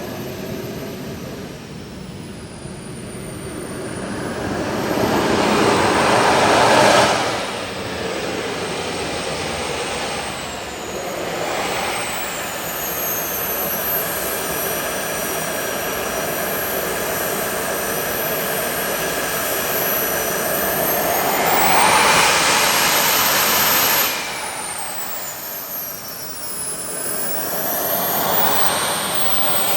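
Engines of a large RC model C-17 jet running on the ground, a high whine that glides up and down with throttle. They surge louder twice, each time dropping back sharply.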